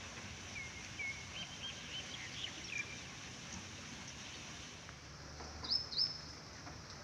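Birds chirping over a steady outdoor hiss: a run of short chirps in the first three seconds, then two higher, sharper calls a little before the end.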